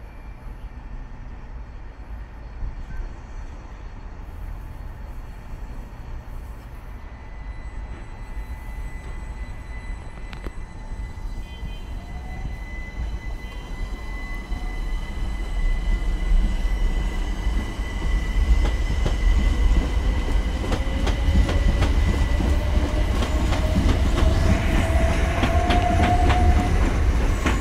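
Southern Class 377 electric multiple unit pulling out, its traction motor whine rising in pitch as it gathers speed and the overall sound growing louder from about halfway. Wheels click over the rail joints near the end.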